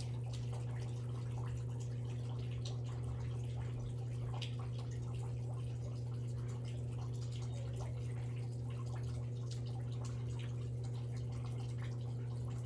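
A steady low hum that does not change, with a few faint ticks and rustles over it.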